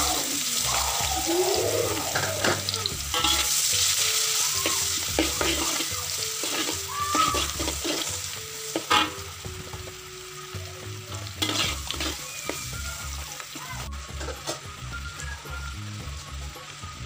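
Chopped red onion sizzling in hot margarine and oil in a wok, stirred with a metal spatula that scrapes and clicks against the pan. The sizzle is loudest at first and dies down over the last few seconds.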